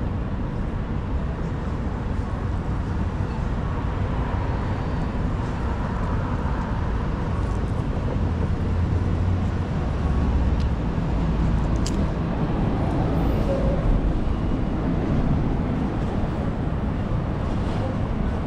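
Steady low wind rumble on the microphone of a moving bicycle, mixed with city street traffic noise.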